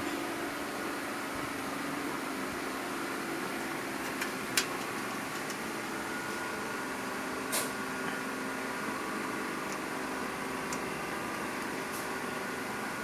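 Steady room hum from a fan or air conditioner, with a few light clicks and taps from cables and connectors being handled in a PC case: two just past four seconds in, one at about seven and a half seconds, and a faint one near the end.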